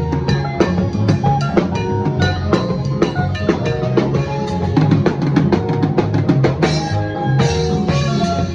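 Band music driven by a drum kit: kick, snare and cymbal strokes over sustained bass and other pitched instruments, with a quick run of drum hits a little past the middle.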